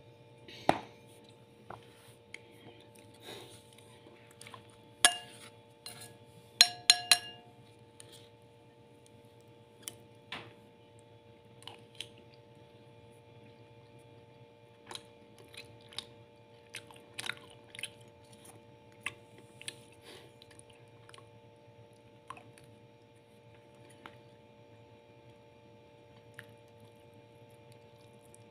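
Spoon clinking and scraping against a ceramic plate while someone eats rice, with soft chewing in between. The loudest clinks come about five seconds in and in a quick run around seven seconds, ringing briefly. A faint steady hum runs underneath.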